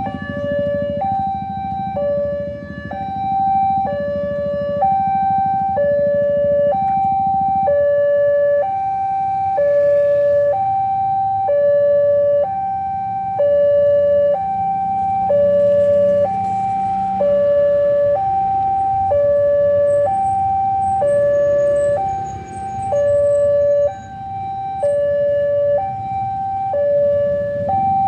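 Railway level-crossing warning alarm sounding two alternating tones, high then low, each held about a second, signalling that the barrier is down for an approaching train. The engines of queued cars and motorbikes idle underneath.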